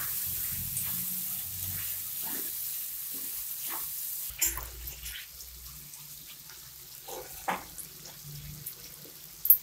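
Chicken, onion and capsicum sizzling in a kadai while a metal spatula stirs them, with a few scrapes and knocks of the spatula against the pan. The sizzle fades over the seconds.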